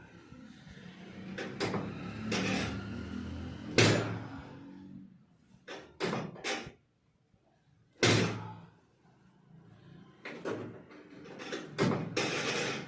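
Chiropractic adjustment: a series of sharp thuds and knocks as thrusts are made on the patient lying on the treatment table, the loudest about four and eight seconds in, with rustling of body and clothing on the table in between.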